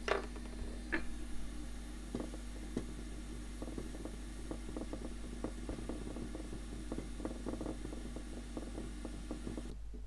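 Many small, irregular scratchy ticks of a cotton bud scrubbing over a circuit board around a freshly soldered micro-USB socket, after two sharper clicks at the start. A steady hum and hiss from a running fan cuts off just before the end.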